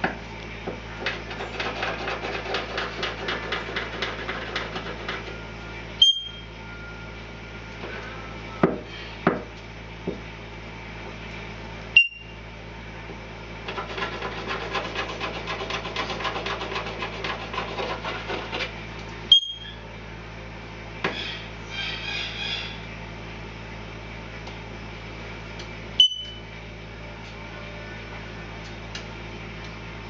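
A caique parrot scrunching and tearing a paper tissue with its beak and feet, in two long stretches of fast scratchy rustling. A few sharp single clicks stand out every six seconds or so.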